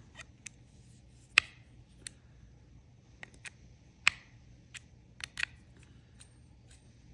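Sharp clicks and taps of a baitcasting reel's spool, frame and side plate being handled by hand. There are about ten scattered clicks, the loudest about a second and a half in and again about four seconds in.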